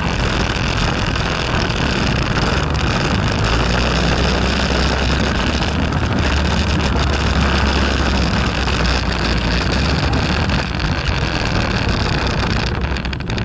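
Quad bike (ATV) engine running steadily under load while riding, with wind buffeting the microphone of the camera mounted on its front fender.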